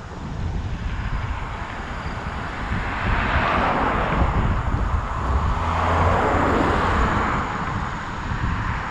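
Rushing wind and road noise from a moving bicycle ride, with no tune or voice in it. It swells louder between about three and seven seconds in, then settles back.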